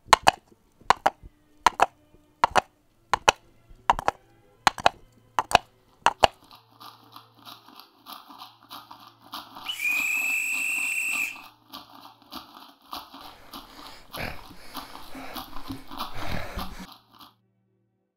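Sharp chopping knocks at a steady pace, about one every two-thirds of a second, stop after about six seconds. They give way to irregular crunching and rustling, with a steady high whistle lasting about a second and a half near the middle. All of it is foley effects.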